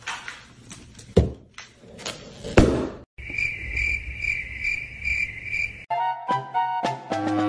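A rubber balloon squeaks and rubs as a dog mouths and paws it, with two sharp pops. The second and loudest comes about two and a half seconds in, as the balloon bursts. After a sudden cut, crickets chirp in a high pulsing trill about twice a second for roughly three seconds, and light music starts about six seconds in.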